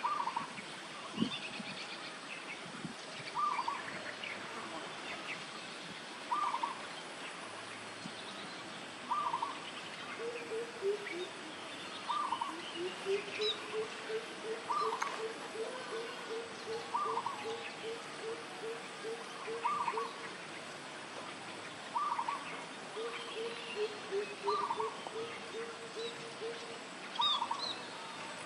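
Wild birds calling. One bird repeats a short call about every two and a half seconds. From about ten seconds in, another gives a long run of low, evenly spaced notes, about three a second; the run breaks off and starts again near the end. Faint high chirps come in between.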